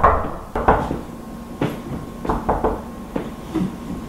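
Knuckles knocking on a door: a string of uneven knocks, some coming in quick groups of two or three.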